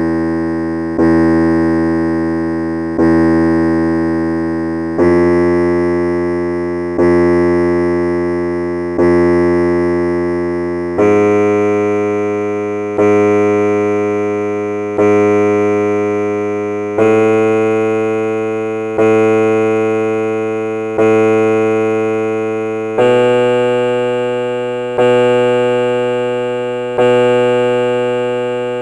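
Piano-toned keyboard playing the guide notes of a sargam alankar exercise in Mayamalavagowla raga: each note is struck three times, one strike every two seconds, and each fades away. The notes climb sa, ri, ga, ma, pa, stepping up every third strike.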